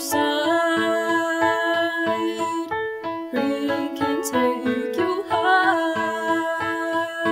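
Bright, upbeat keyboard-led music with a quick, steady beat.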